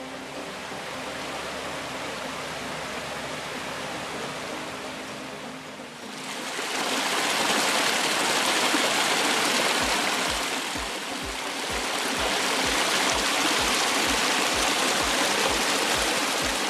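Small rocky woodland brook rushing and splashing over stones in a little cascade, growing clearly louder about six seconds in.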